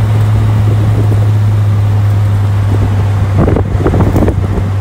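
Loud, steady low drone of a vehicle with wind rushing over the microphone, a few harder gusts buffeting it between about three and a half and four seconds in.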